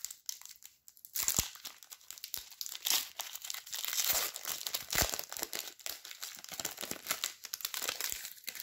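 Trading card pack wrapper crinkling and rustling in the hands: a dense, irregular crackle of small rustles, typical of a card pack being handled and opened.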